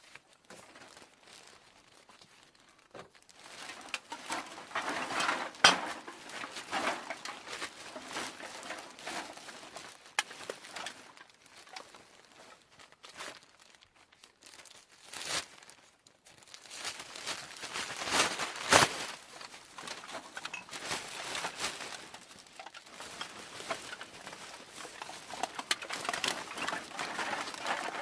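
Empty aluminium cans being handled and knocked together, with irregular clattering and crinkling. There are sharper metallic hits about five seconds in and again around eighteen seconds in.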